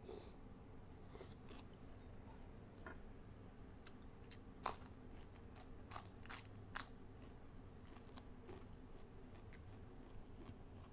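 Faint close-up eating sounds: chewing on pickled crab eaten by hand, with a scatter of short wet clicks from the mouth, the sharpest about halfway through.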